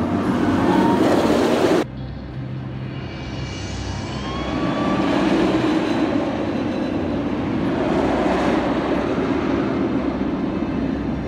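Riddler's Revenge, a Bolliger & Mabillard stand-up steel roller coaster, with its train rushing and rumbling along the track. One pass cuts off abruptly about two seconds in. A second passage builds from about three seconds and stays loud through most of the rest.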